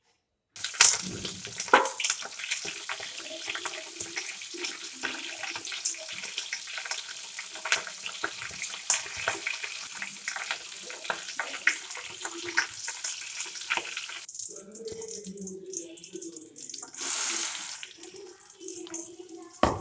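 Tempering for coconut chutney: hot oil sizzling in a steel kadai, with mustard seeds crackling and popping among curry leaves. The sizzle drops away about fourteen seconds in, and a few seconds later a short, louder hiss comes as the ground chutney is poured into the hot oil.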